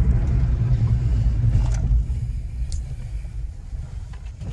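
Low in-cabin rumble of a 2013 Hyundai i20's 1.2-litre petrol engine and its tyres on the road, falling away from about two seconds in as the car slows after a drag run.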